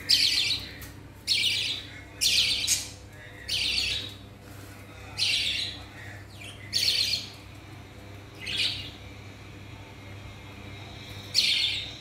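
Budgerigars calling: about nine short, high chirps at uneven intervals, each around half a second long.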